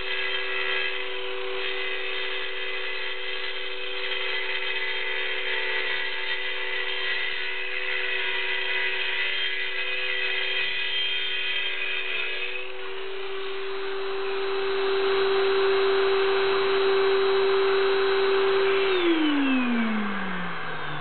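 Circular saw with a diamond masonry blade running at full speed and scoring a shallow cut in concrete, a steady motor whine over grinding, the sound changing and getting louder about two-thirds of the way through. Near the end the saw is switched off and the motor winds down, its pitch falling.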